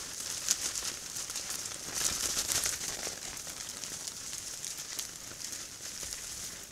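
Wild boars close by on frozen, snowy ground making a dense crunching and crackling as they move and root about, loudest two to three seconds in.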